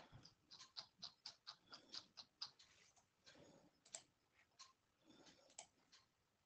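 Faint, irregular clicking of a computer keyboard being typed on, about three keystrokes a second.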